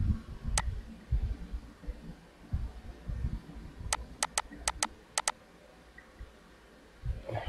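Computer mouse clicking: one click, then a quick run of about seven clicks about four seconds in, over irregular low dull thumps on the microphone.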